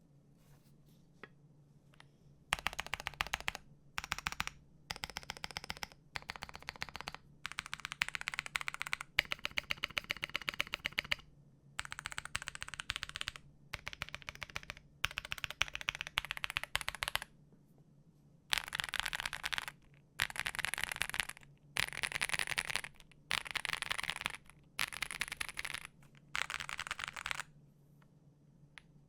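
Mechanical keyboard with Wuque Studio Onion switches, Aurora stabilizers and full foam, its keys clacking in quick runs of key presses, one block after another. The last third holds about seven short, evenly spaced runs, each a sweep across one row of keys.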